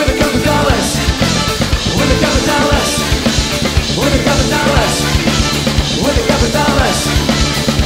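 Live funk-soul band playing, the drum kit keeping a steady beat under bass and horns.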